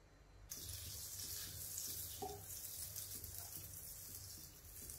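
Butter melting and sizzling in hot oil in a nonstick wok, stirred with a wooden spoon; the sizzling starts about half a second in.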